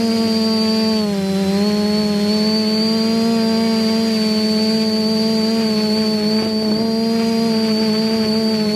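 Electric motors and propellers of a TBS-frame multirotor drone in flight, heard from its onboard camera: a loud, steady whining hum whose pitch dips briefly about a second in and then comes back up and holds steady.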